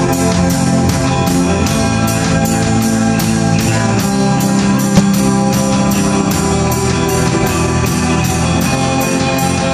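Live rock band playing: electric guitar and electric bass holding steady chords over a drum kit keeping an even beat of about four strokes a second, with one sharp hit about halfway through.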